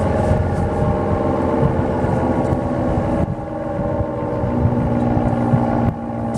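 A.C.A. P-10 rotating outdoor warning siren sounding a sustained steady tone, with the level dropping about three seconds in.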